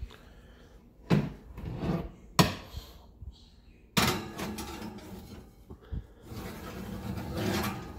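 Oven door being opened with clunks, then a metal platter set down on the oven's wire rack with a clank about four seconds in and slid across it with a scraping noise.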